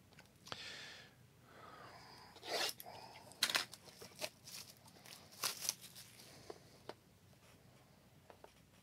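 A cardboard trading-card box being opened by hand: several short scraping and rustling noises of cardboard and packaging, with quieter handling sounds between.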